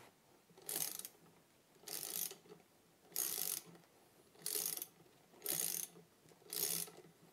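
Ratchet wrench turning the forcing screw of a three-jaw bearing puller, clicking in six short bursts about a second apart as the handle is swung back and forth. The puller is drawing the center bearing shell off a driveshaft.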